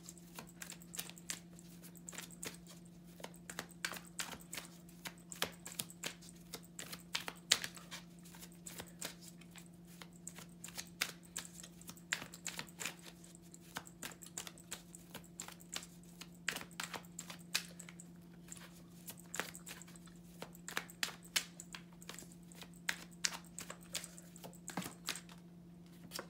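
Tarot cards being shuffled by hand: a long run of light, irregular clicks and flicks as the deck is cut and mixed, over a steady low hum.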